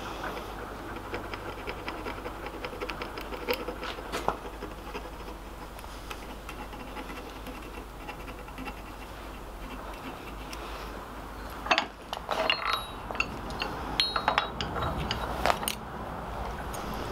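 Hand tools worked on the steel face of a small anvil clamped in a bench vise: light scratching and ticking at first, then, from about twelve seconds in, a run of sharp metallic taps and clicks, some leaving a brief high ring.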